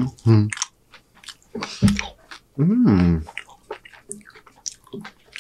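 Close-up chewing of loaded tortilla-chip nachos: wet mouth clicks and small crunches. A few short vocal sounds come through the food, with a longer one just before the middle that rises and falls in pitch.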